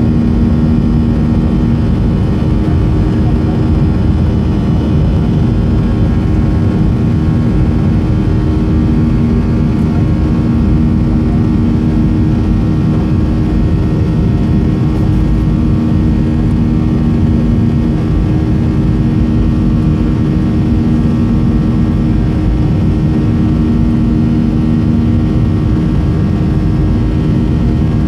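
Steady cabin noise of a Boeing 737-300 climbing after takeoff: its CFM56 turbofan engines and the airflow heard from inside, with a low steady hum that swells and fades a few times.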